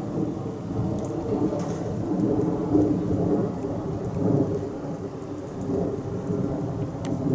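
Low, steady rumble of road and rail traffic: cars driving over a level crossing and a red Meitetsu 100 series train running on the line, swelling and easing every second or two.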